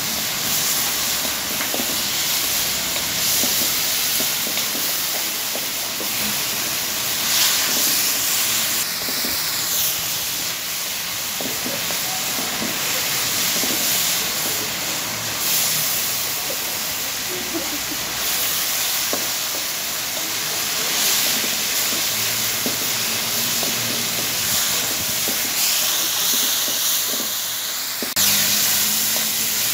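Chicken pieces frying in oil in a steel wok, a steady sizzling hiss with a few light clicks.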